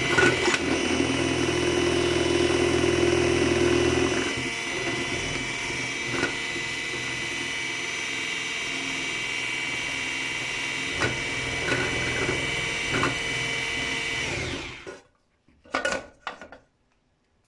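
Electric hand mixer running steadily with a whine, beating cake batter in a bowl, with a few light knocks of the beaters against the bowl. It switches off about fifteen seconds in, the motor winding down.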